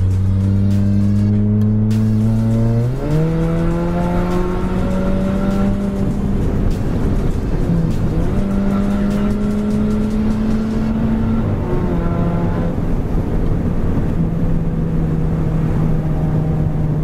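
Mk5 Volkswagen GTI's turbocharged four-cylinder engine heard from inside the cabin, accelerating hard. Its pitch climbs about three seconds in and holds high with a brief dip, then steps down a little past the middle.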